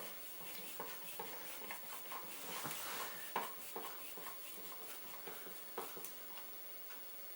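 Faint, irregular small clicks and scrapes of a screwdriver turning the mounting screws that fasten a receptacle into its wall box.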